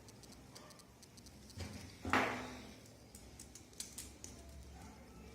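Small clicks and taps of smartphone parts being handled and fitted during reassembly, with one louder sharp click about two seconds in that rings briefly, and a few lighter ticks later.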